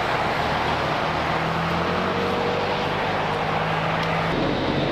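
Steady running noise of a vehicle engine, with a low droning hum that cuts off about four seconds in.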